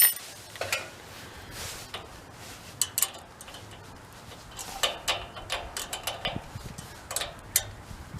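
Hand tools working on a generator's air box: a ratchet wrench clicking in short quick runs, with light metallic clinks of small parts being handled.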